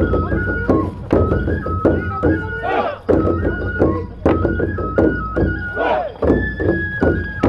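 Japanese festival procession music: a bamboo flute plays a melody of held, stepping high notes over drum strikes beating two to three times a second, with voices calling over it.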